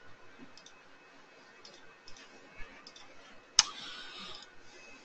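Computer mouse clicking a few times, faintly, with one sharper click about three and a half seconds in.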